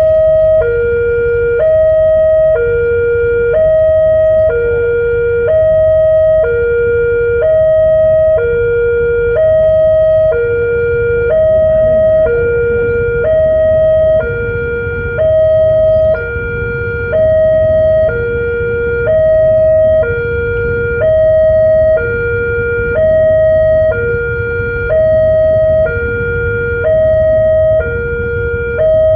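Railway level-crossing warning alarm sounding continuously: a two-tone electronic signal alternating high and low, each tone held about a second, over a low rumble.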